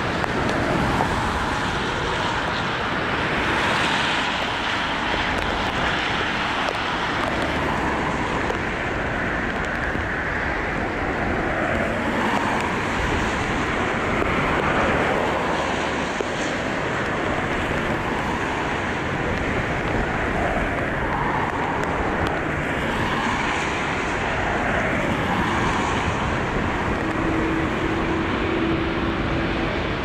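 Gusty wind buffeting the microphone over the rumble of jet airliner engines on final approach in a strong crosswind. Near the end a steady engine hum joins in.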